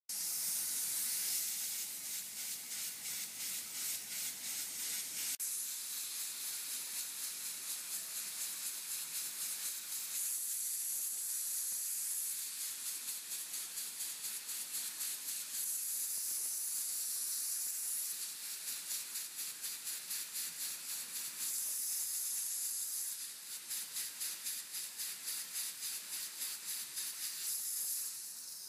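Steam cleaner nozzle jetting steam onto chewing gum stuck to concrete: a steady hiss with a fast, even pulsing, strongest near the end, as the steam softens and lifts the gum.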